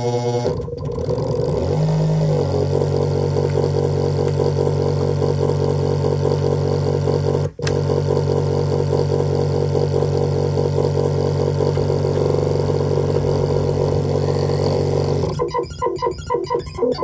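Benjolin synthesizer module (forestcaver SMD build) sounding a steady, buzzing drone made of several held tones, after a short pitch sweep settles about two seconds in. It cuts out for an instant about seven and a half seconds in. Near the end it breaks into a fast, choppy pulsing.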